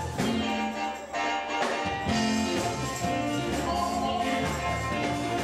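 Live gospel quartet music: voices singing over a backing band. The bass drops out for about a second, starting about a second in.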